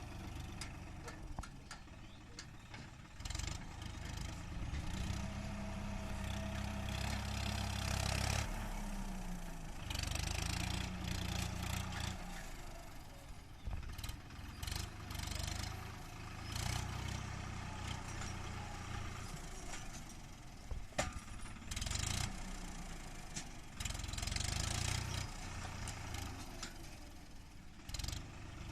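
Swaraj 963 FE tractor's diesel engine running, its sound swelling and easing in spells of a few seconds as it takes load from the backhoe attachment, with a few sharp clanks.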